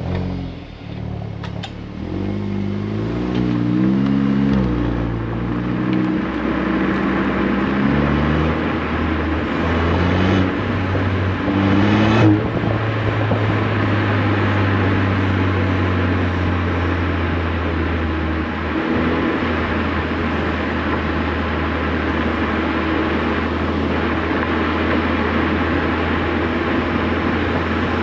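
VW Golf 8 R's turbocharged 2.0-litre four-cylinder through an Akrapovic exhaust, the revs climbing in short steps during the first few seconds. It climbs again to one sharp crack about twelve seconds in, then settles into a steady drone.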